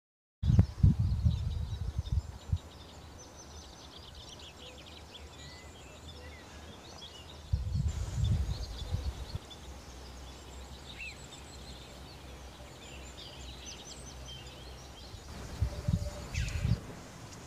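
Wind gusting on the microphone in three low rumbling bouts, with many birds chirping and calling high in the background throughout.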